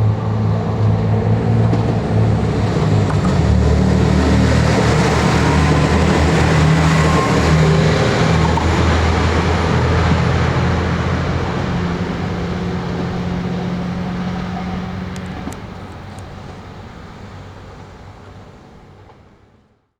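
JR Shikoku 2600 series diesel railcar running past: a low diesel engine drone under rushing wheel and rail noise. The engine note shifts about three and a half seconds in, the sound is loudest over the next several seconds, then fades steadily as the train draws away and cuts off suddenly near the end.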